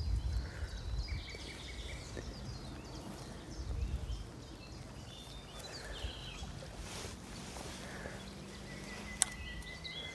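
Small birds chirping in short, high notes, over a low rumbling noise that is louder at the start and again around four seconds in. A single sharp click comes about nine seconds in.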